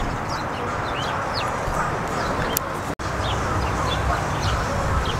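Many birds calling in short, quick chirps, several a second, over a loud, steady outdoor din. The sound breaks off for an instant about three seconds in.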